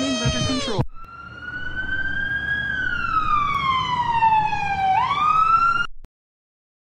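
A child's crying wail falling in pitch, cut off under a second in, then an ambulance siren: one long wail that drifts slowly down in pitch and then sweeps quickly back up, stopping about six seconds in.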